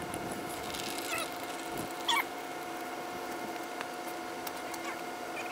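Used engine oil trickling in a thin stream from the oil pan into a plastic drain pan, under a steady background hum. A few short high chirps cut in, the loudest about two seconds in.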